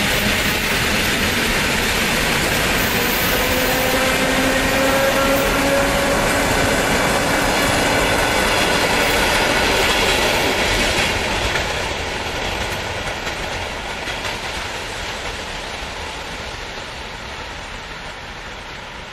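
ED4M DC electric multiple unit passing at speed: steady, loud running noise from its wheels and running gear, with a few faint whining tones. About eleven seconds in, the sound begins to fade gradually as the train draws away.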